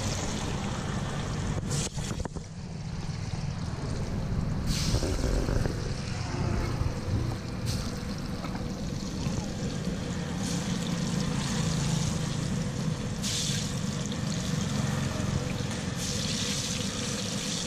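Urad dal vadas (minapa garelu) sizzling and bubbling as they deep-fry in a large wok of hot oil. The hiss grows louder for a moment a few times, over a steady rumble of street traffic.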